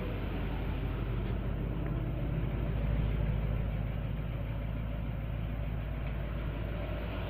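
Engine of a 1957 Chevrolet Bel Air barn find idling steadily, running on its first start after sitting for a long time.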